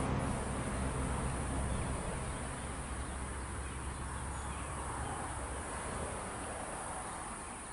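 Fiat ALn 776 diesel railcar's engine rumble fading away over the first few seconds as it moves off past the level crossing, leaving insects calling in the background.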